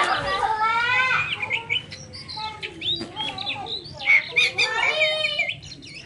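Oriental magpie-robin singing: a fast, varied run of whistled notes that slide up and down, mixed with sharp chirps.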